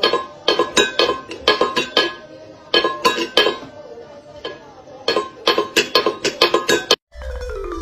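A cat batting a stainless steel bowl around on a tiled floor: quick runs of metallic clanks and rattles with a ringing tone, pausing briefly in the middle. Near the end it cuts to marimba-style music.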